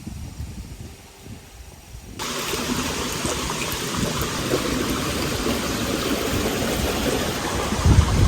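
Steady rushing water, as of a stream or small cascade, starting abruptly about two seconds in after a quiet stretch.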